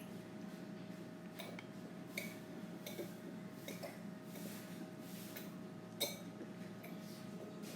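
Spoon and cutlery clinking and scraping against a plate or bowl of fried rice, in scattered light clicks with a sharper clink about six seconds in, over a steady low hum.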